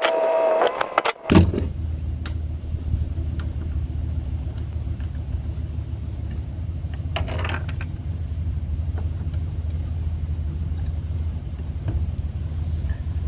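A cordless drill/driver runs with a steady whine for about a second. Then a vehicle engine is heard idling with a steady low hum, and a brief higher-pitched burst comes about seven seconds in.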